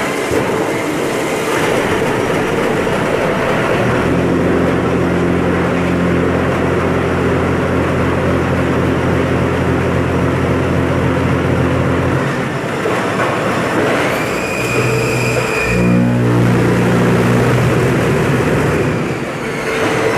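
Poyatos Novabloc concrete block production line running: a loud, steady machinery din. A motor hum sets in about four seconds in and stops near twelve seconds; a second motor starts with a rising whine around fourteen seconds and hums for a few seconds.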